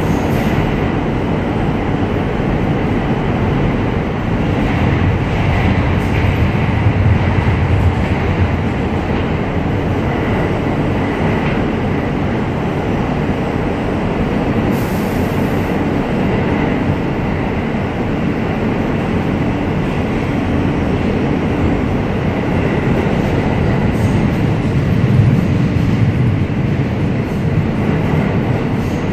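R160A subway car running at speed through a tunnel, heard from inside the car: a loud, steady rumble of wheels on rail. It swells a little twice, about a quarter of the way in and near the end.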